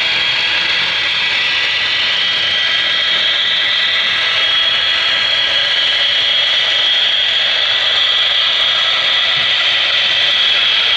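HO-scale model diesel locomotives and coal cars running on the layout track: a steady, high-pitched whir of motors and wheels on rail.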